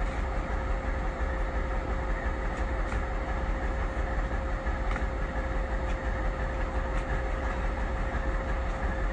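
Engine idling steadily: a constant low rumble with a steady hum, with a few faint clicks.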